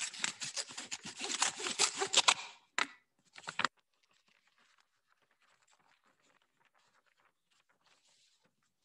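Paper bid envelope being torn open: about two and a half seconds of ripping paper, then two short rips around three seconds in, then faint rustling of paper.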